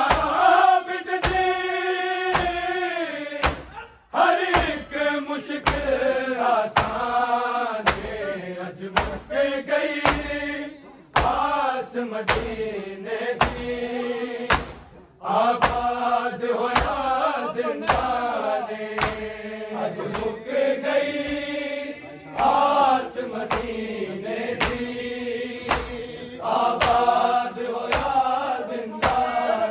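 Men chanting a noha, a Shia lament, line after line with short breaks between phrases, over a steady rhythm of hands striking chests in unison (matam).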